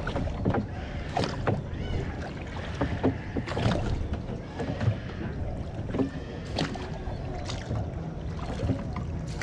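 Small boat on the water: a steady low rumble with scattered short knocks.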